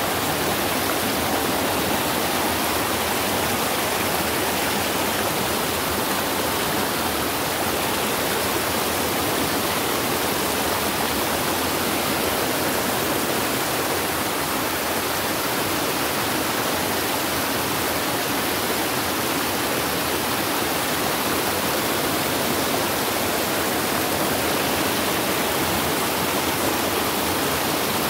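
Muddy floodwater in a rocky creek swollen by heavy rain, rushing and falling over the rocks in a steady roar.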